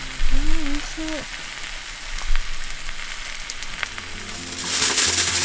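Food sizzling and crackling in a cast-iron skillet over a campfire, a steady hiss with scattered ticks. Music comes in near the end.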